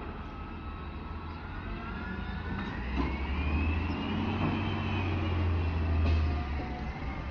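Peterbilt 320 garbage truck with a Dadee Scorpion side-loader body driving up the street, its diesel engine rumbling louder as it approaches. A whine rises in pitch as it pulls ahead, then falls away.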